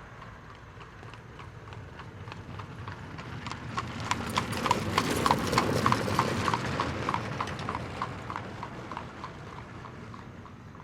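Horse-drawn carriage passing by: hooves clip-clopping in a steady rhythm on a hard road over the rumble of the carriage wheels. Both grow louder to a peak about halfway through, then fade away.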